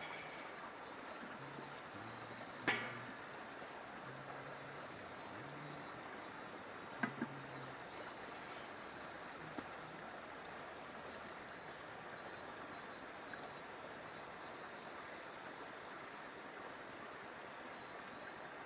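Insects chirping in repeated high, pulsed trains over a faint steady background, with a few sharp clicks or knocks: the loudest about three seconds in, and a quick pair about seven seconds in.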